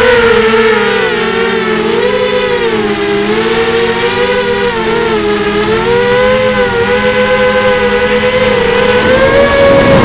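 FPV quadcopter's motors and propellers whining loudly, the pitch wavering up and down as the throttle changes, with a rush of noise near the end.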